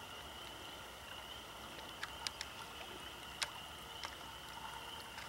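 Faint water trickling over a beaver dam in a roadside ditch, against a steady high-pitched drone, with a few sharp clicks between about two and four seconds in.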